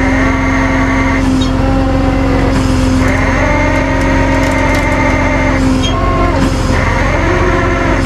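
Tow truck's engine running under load while it drives the hydraulic winch pulling an RV. A steady drone sits under a higher whine that cuts in and out three times as the winch is worked.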